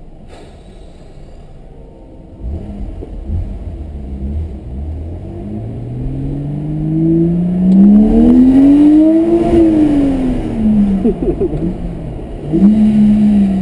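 BMW E90 3 Series engine and exhaust accelerating hard: the pitch climbs steadily for a few seconds, then falls as the throttle lifts, with a few crackles, and a short second rev near the end. The sound echoes off the surrounding buildings.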